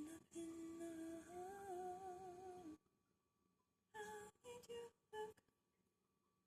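A woman humming to herself: one long, slightly wavering note lasting about two and a half seconds, then three short notes about a second later.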